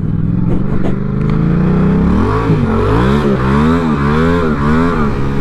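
Yamaha MT-07's parallel-twin engine pulling up through the revs for about two seconds, then revved up and down four or five times in quick succession, about twice a second.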